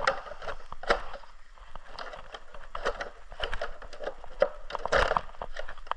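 Plastic GoPro mount being handled and twisted tight: irregular small clicks and scraping rubs of hard plastic, with a couple of louder knocks about a second in and near the end.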